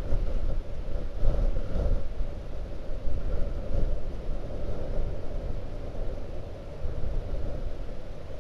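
Blizzard wind gusting hard against the microphone, a deep rumbling buffet that swells and eases from gust to gust.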